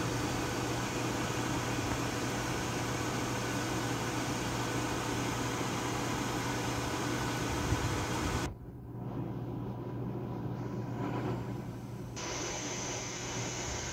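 Pot of pasta water at a rolling boil: a steady rushing hiss over a low hum. It cuts off abruptly about eight and a half seconds in, leaving a quieter steady hiss.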